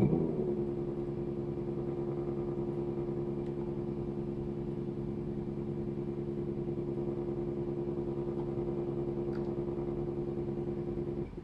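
Brushless DC motor driven by an ODESC controller in Hall-sensor speed mode, starting abruptly and settling within half a second into a steady hum of several fixed pitches at a commanded constant speed. The hum cuts off suddenly near the end as the motor is commanded to zero speed.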